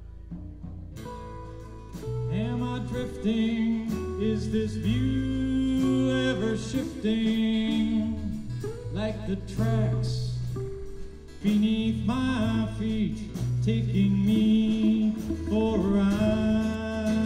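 Live rock band playing a song with guitars, bass and drums, with a sung vocal line. The band is quieter at first and comes in fuller about two seconds in, dropping briefly just past the middle before returning.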